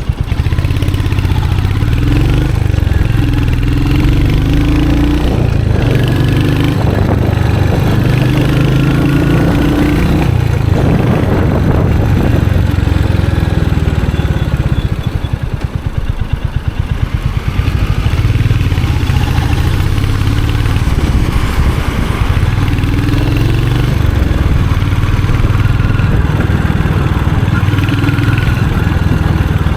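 Royal Enfield Hunter 350's single-cylinder engine and exhaust running while the motorcycle is ridden, its note shifting up and down with the throttle. It eases off and drops in level briefly about halfway through.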